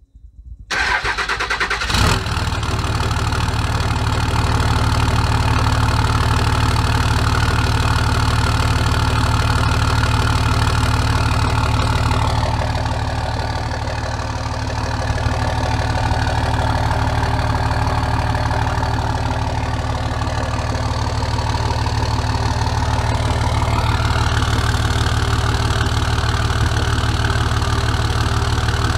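2005 Dodge Ram 2500's 5.9-litre Cummins inline-six turbo-diesel, with a newly fitted Banks Ram-Air cold air intake, cranking on the starter and catching about two seconds in, then idling steadily. It is somewhat quieter for a stretch in the middle.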